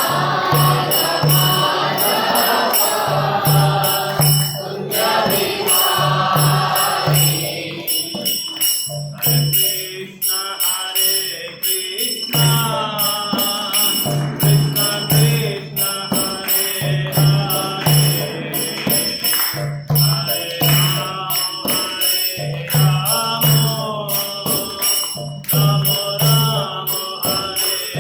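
Devotional chanting with music: voices singing over hand cymbals (kartals) ringing in a steady rhythm and a drum beating regularly underneath.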